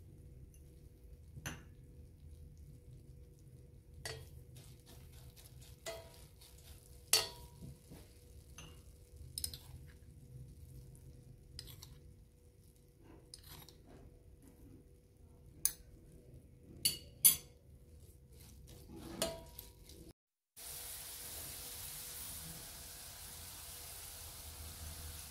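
A metal spoon and small bowls clink sharply about a dozen times against a stainless steel pan of carrots. Just past the twenty-second mark there is a short cut, and then a steady sizzle from the pan.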